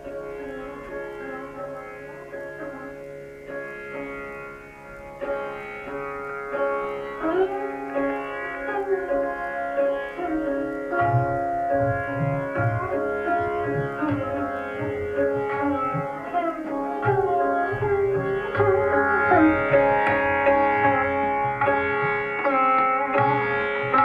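Indian classical instrumental music, a plucked string melody with bending notes, played back through a valve amplifier and loudspeakers. Low hand-drum strokes join about halfway through.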